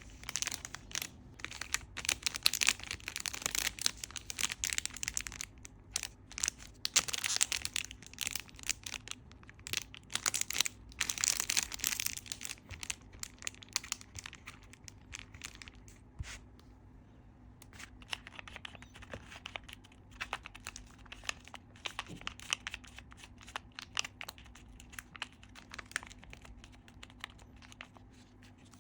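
Hands playing with a homemade fidget board: bursts of crinkling, scratchy rustling and small clicks, easing off briefly about halfway through.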